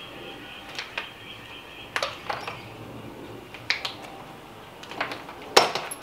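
Hand tools and metal parts being picked up and set down on a wooden workbench: a handful of separate sharp clinks and knocks, the loudest near the end.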